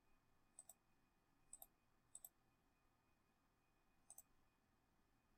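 Four faint computer mouse clicks spread over a few seconds, each a quick press-and-release pair, with near silence between them.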